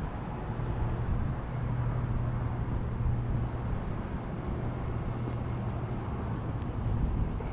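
Steady outdoor traffic noise with a low, even hum.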